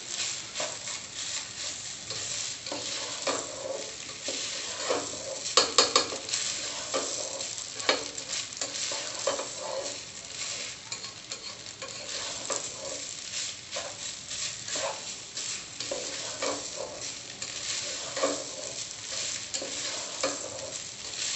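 Spatula stirring and scraping raw rice as it fries with spices in a pot, over a steady sizzle, in quick repeated strokes with a louder flurry of scrapes about six seconds in. The rice is being toasted in the masala until the grains turn dry and loose.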